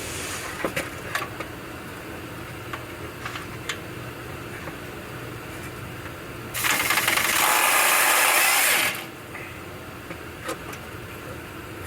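A power tool runs in one burst of about two and a half seconds, a little over halfway through, as a nut on the exhaust hanger bracket is run off. Small metallic clicks of tool handling come before it.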